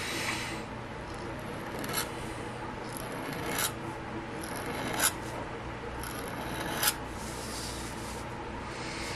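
Pen nib scratching across paper in sweeping flourish strokes. About four longer strokes each end in a sharp flick.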